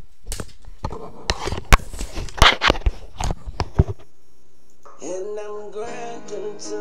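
Rustling, clicks and knocks right at the microphone while the webcam is handled. After a brief quiet gap, background music with plucked guitar-like notes starts about five seconds in.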